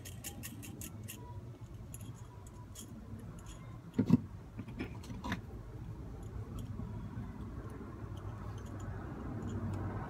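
Small metal clicks and taps as a steel U-bolt and bracket are handled and fitted by hand, with a louder knock about four seconds in and another just after five.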